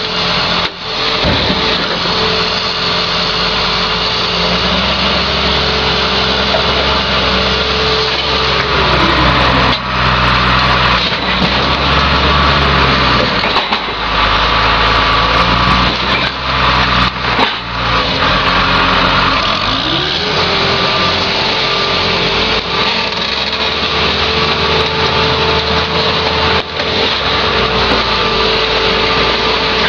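Heavy diesel machinery running steadily: a mobile car crusher's engine together with a John Deere 544J wheel loader working beside it. The engine pitch falls about a third of the way through, stays low for roughly ten seconds, then climbs back up.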